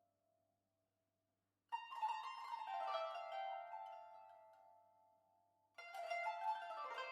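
Music on a plucked string instrument: a chord is struck about two seconds in and again near the end, each ringing on and slowly fading, after a brief moment of silence.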